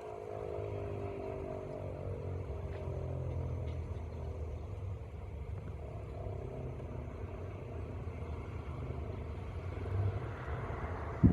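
Federal Signal 2001-130 electromechanical siren winding down at the end of a test signal, its tone sliding lower and fading out over the first few seconds. Underneath is a steady low traffic rumble, and there is a sharp thump at the very end.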